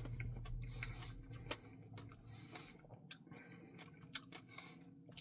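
Faint wet mouth clicks and smacks from eating a salted caramel truffle Blizzard, with a low hum in the first couple of seconds.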